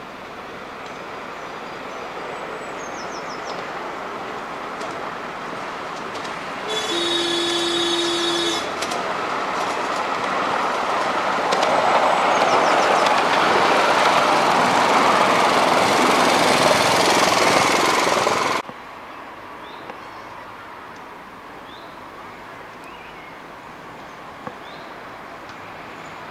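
A miniature railway train approaches and runs past on its narrow track, its wheels and engine making a rumble that grows louder as it nears. About seven seconds in, a steady pitched toot of about two seconds sounds from the train. The rumble cuts off suddenly about eighteen seconds in, leaving a much quieter open-air background.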